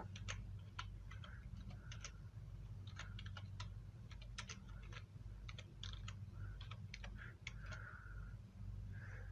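Computer keyboard typing: a run of short, irregular keystroke clicks over a steady low hum.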